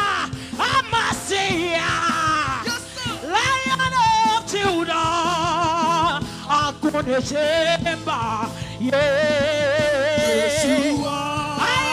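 Live gospel praise song: a woman's amplified lead vocal with a wide vibrato, over low, steady band accompaniment.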